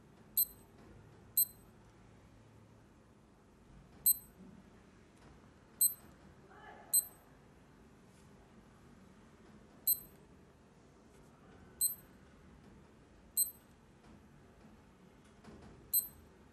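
Electronic beeper of an LED digital alarm clock giving short, high-pitched key beeps, nine in all at uneven intervals, one for each touch or button press as the clock is operated.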